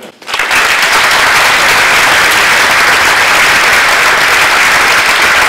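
Audience applauding, starting a moment in and holding steady and loud.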